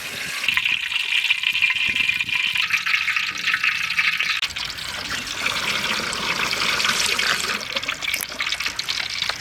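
Coconut oil being poured in a steady stream into a large frying pan.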